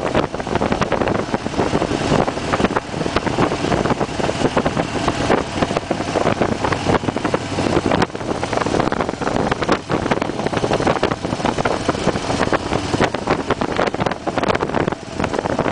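Wind rushing and fluttering over the microphone of a moving motorcycle, with the 2008 Harley-Davidson Fat Bob's V-twin engine running at cruising speed underneath.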